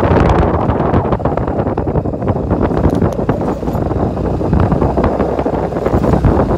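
Wind buffeting the microphone over a moving motorbike's engine and tyre noise, with frequent short knocks and rattles from riding over a rough, cracked road.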